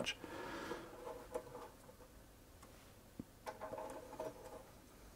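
A screwdriver turning screws into the plastic bottom cover of a Bernina 930 sewing machine. It makes faint, short squeaky creaks as the screws bite, in two spells, with a few light clicks.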